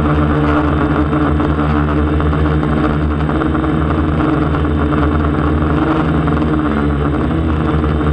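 DJI Flamewheel 450 quadcopter's motors and propellers humming steadily in flight, heard close up from the camera mounted on the drone.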